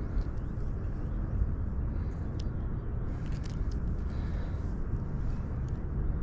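Wind rumbling steadily on the microphone, with a few light clicks about two and three seconds in.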